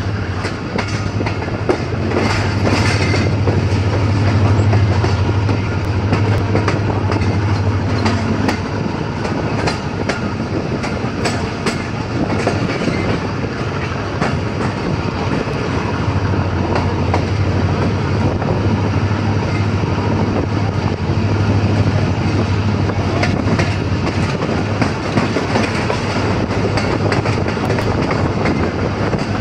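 Passenger coaches of a moving train heard from an open coach window: a steady rumble of steel wheels on the rails, with frequent clicks as the wheels pass over rail joints.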